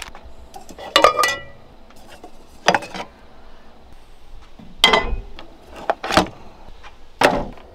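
Cookware being handled while a camp meal is prepared: a handful of separate metallic clinks and knocks, the one about a second in ringing briefly.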